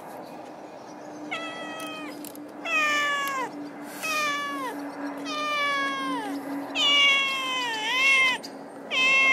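A stray cat meowing over and over: about five long, drawn-out calls, each falling in pitch, starting about a second in.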